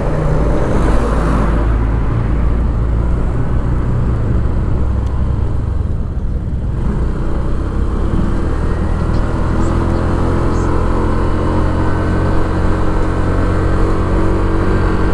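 Honda scooter's engine running as it rides along, with steady wind and road noise over it; the noise eases briefly about halfway, then the engine note climbs a little as it picks up again.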